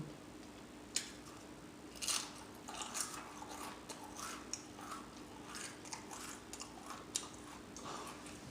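Close-miked eating of crispy beef and cheese taquitos: a sharp click about a second in, then irregular crunching and wet mouth clicks of chewing and smacking.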